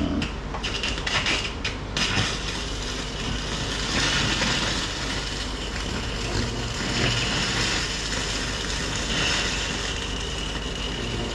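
Electric arc welding: a continuous sizzling crackle from the arc over a steady low hum, with a few metal knocks in the first couple of seconds.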